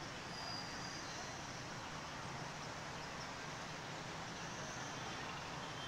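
Steady outdoor background noise: an even hiss over a faint low hum, with no distinct event standing out.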